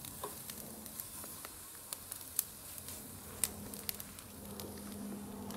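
Skirt steak strips sizzling on the grate over direct charcoal heat, with scattered crackles and pops.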